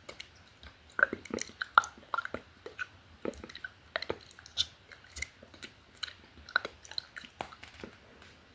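Close-miked ASMR mouth sounds: irregular wet clicks and smacks of lips and tongue, several a second, from unintelligible whispered reading.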